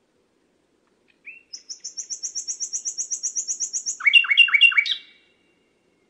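Common nightingale singing one song phrase. A fast trill of high repeated notes, about nine a second, is followed near the end by four louder, lower notes, each falling in pitch.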